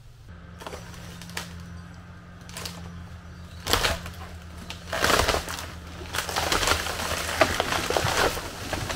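Kubota L4060 tractor's diesel engine picks up about the start and runs steadily, driving the Igland 3501 PTO skidding winch. From about four seconds in, a broken snag is dragged out of a pine with repeated loud cracking and snapping of wood and branches.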